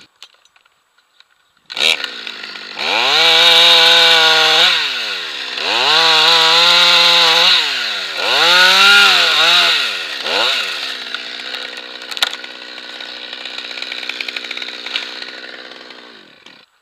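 Stihl chainsaw revved to full throttle three times, dropping back between each, then idling steadily for about five seconds with one sharp click in the middle, and cutting off near the end.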